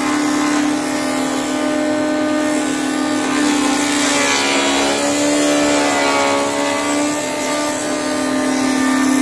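Wood planing machine running with a steady, strong hum while its cutter throws out a stream of shavings. A few seconds in, its pitch sags briefly and then recovers.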